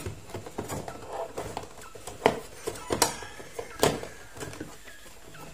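Hand tools knocking and clicking against the hard plastic trays of a toolbox as they are set in place: a run of irregular knocks, the sharpest a little after two, three and nearly four seconds in.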